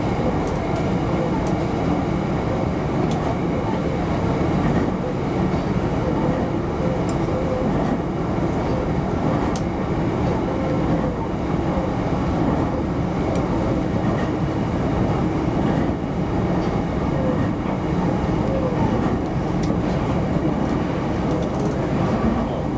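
Electric commuter train running steadily along elevated track, heard from inside the cab: a continuous rumble of wheels and running gear, with a few faint clicks.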